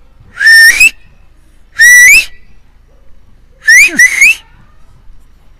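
Three loud whistle calls to call a dog, each held on one pitch and then rising at the end; the third is broken into two quick parts.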